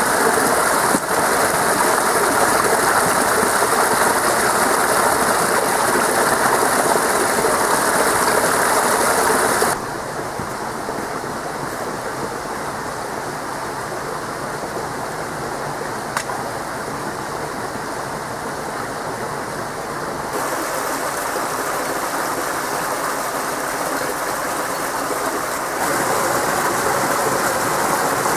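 Small waterfall splashing into a rocky pool, a loud, steady rush of water. About ten seconds in it drops to a quieter rushing of a stream, with a single sharp click midway.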